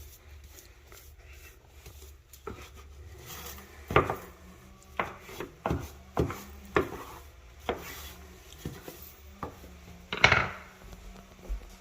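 Irregular knocks and light clatters of hard kitchen items being handled and knocked about, about a dozen spread unevenly, the loudest about ten seconds in.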